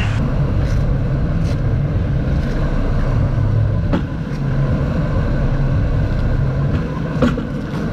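Boat engine running with a steady low drone, with a few light knocks.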